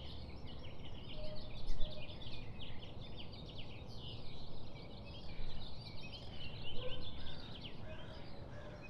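Small birds chirping continuously, with many short high chirps overlapping, over a low background rumble.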